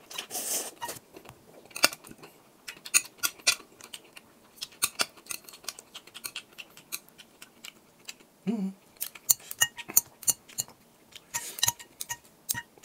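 A slurp of noodles at the start, then many quick clinks and scrapes of a metal spoon and chopsticks against a glass bowl as spicy noodles are stirred and mixed. There is a brief hum from the eater a little past halfway.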